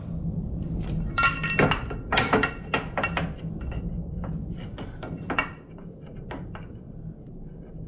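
Metal parts clinking and knocking as they are handled and set against each other, with a cluster of sharp, ringing clinks about a second in and scattered lighter knocks after, over a low steady hum.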